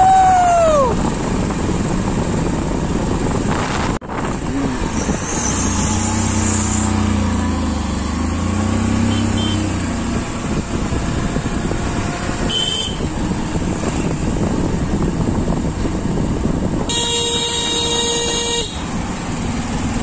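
Motorcycles riding along a road: steady engine drone and wind rush, with a horn sounding for about a second and a half near the end.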